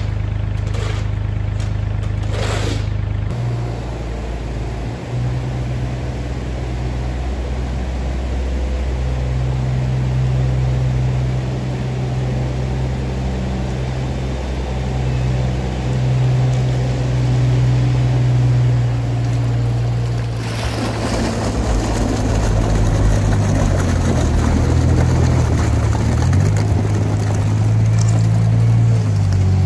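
Compact loader's diesel engine running steadily, its pitch shifting as it works. A shovel scrapes wet sand in the first few seconds, and the last third is a louder, noisier stretch of machinery.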